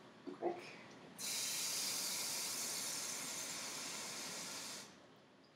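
Kitchen faucet running water into a bowl to fill it: a steady hiss that starts about a second in and shuts off abruptly near the end.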